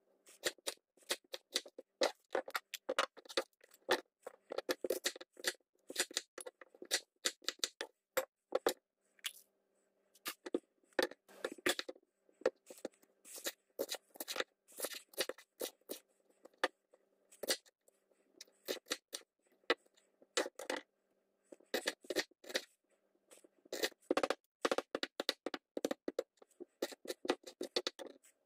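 Chef's knife chopping onion, red bell pepper and garlic on a wooden cutting board: quick runs of sharp knocks of the blade against the board, with a couple of short pauses in the second half.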